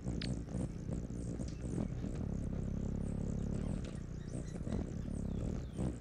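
Forest ambience: a low steady hum under many short, faint, high chirps.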